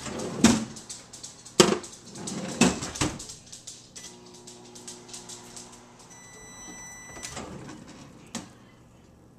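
Sharp microwave drawer being loaded and run: knocks and clatter of the drawer and glass measuring cup, then a steady hum as the oven runs. A long electronic beep follows, then a click as the drawer is opened.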